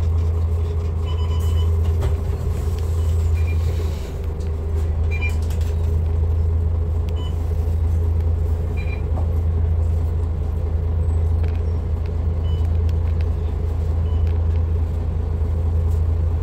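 MAN NL323F diesel city bus running steadily under way: an even, deep engine and road hum that holds level throughout, with a few faint brief high clinks.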